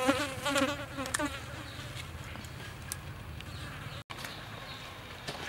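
A flying insect buzzing close by, its pitch wavering and breaking off, loudest in the first second or so, over a steady low rumble.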